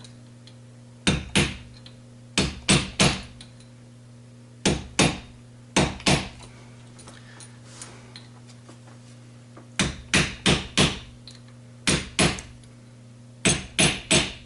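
Hammer taps on the gearbox mainshaft assembly of a Ford 2000E gearbox, driving the synchro hub down onto the splines: sharp metallic knocks in short clusters of two to four, about seventeen in all. The hub is a tight fit, so it is being tapped on in place of a press.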